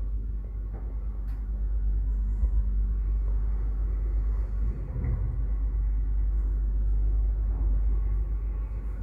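Lift Service passenger elevator car travelling upward between floors, heard from inside the cabin as a steady low rumble.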